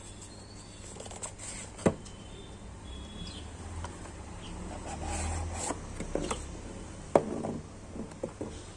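A cardboard smartwatch box being handled and set down on a table: soft sliding and rubbing of cardboard, scattered light taps, and two sharp knocks, one about two seconds in and a louder one about seven seconds in.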